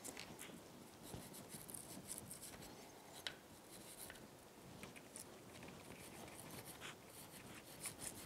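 Small brass wire brush scrubbing a carburetor float bowl: faint, irregular scratching strokes.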